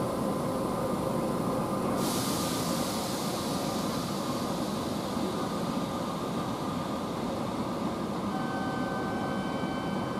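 Kintetsu 23000-series Ise-Shima Liner express standing at the platform with its doors open, its onboard equipment humming steadily with a few faint whining tones. About two seconds in, a sudden sharp hiss of released air starts and dies away over the next few seconds.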